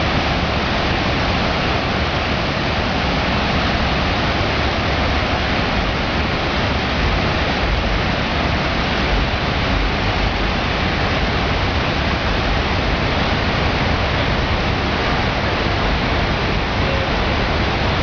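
Water pouring down the walls of the 9/11 Memorial's South Pool, a large man-made waterfall: a steady, unbroken rush of falling water.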